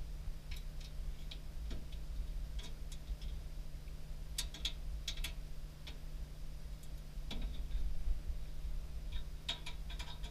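Irregular light clicks and taps of snack packages and spiral coils being handled while a vending machine is stocked, with clusters of quick clicks around the middle and near the end. A steady low hum runs underneath.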